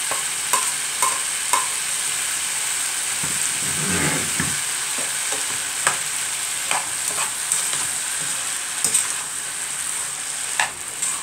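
Chicken and vegetables frying in a pan with a steady sizzle while a utensil stirs them, knocking against the pan with sharp ringing taps, about two a second at first and then now and again.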